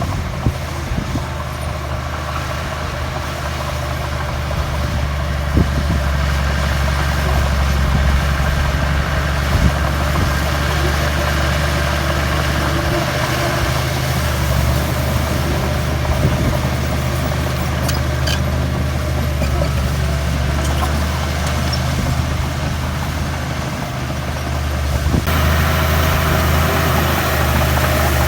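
Heavy diesel engine of earthmoving machinery running steadily, with a few short knocks. About 25 seconds in it gets louder and noisier, with more hiss and clatter.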